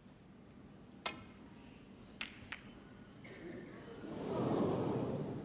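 Snooker shot: a cue tip strikes the cue ball about a second in, and about a second later two sharp clicks follow as the cue ball hits the balls. Near the end a swell of audience noise rises and fades.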